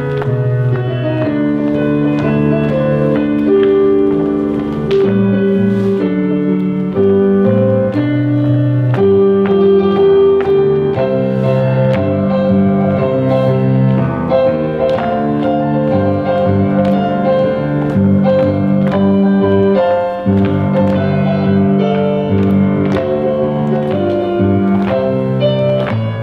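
Instrumental music with long held chords, playing steadily.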